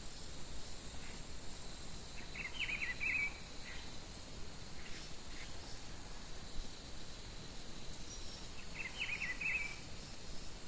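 A songbird singing the same short, quick phrase twice, about six seconds apart, over a steady high insect trill and a low outdoor background hiss.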